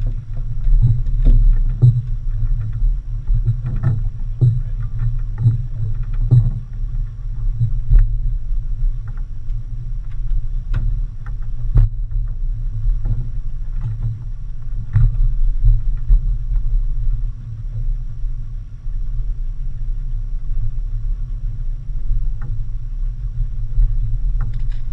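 Boat's twin outboard motors running with a steady low rumble, with irregular knocks and thumps over it, more of them in the first few seconds.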